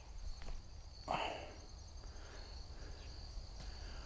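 Faint, steady high-pitched insect chorus, with a few light clicks early and one brief soft swish about a second in.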